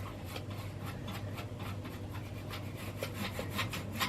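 Repeated rubbing and scratching strokes, a few per second and irregular, as a surface is wiped clean by hand, over a steady low hum.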